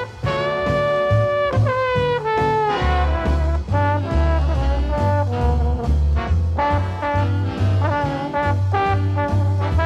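Old swing-era dance band record playing an instrumental passage: horns over a steady walking bass. A long held note about half a second in slides down about two seconds in.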